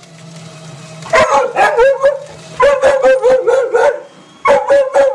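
A paper shredder's motor hums steadily. From about a second in, a small dog barks at it in three quick runs of high, yapping barks, several a second.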